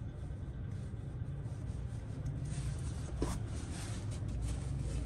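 Quiet hand-handling and rubbing sounds at a workbench over a steady low hum, with one short squeak about three seconds in.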